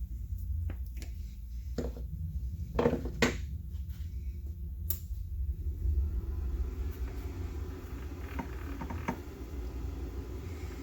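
Metal tools and parts clinking and knocking as they are handled on a workbench. About six seconds in, a steady machine noise starts up: the small metal lathe running.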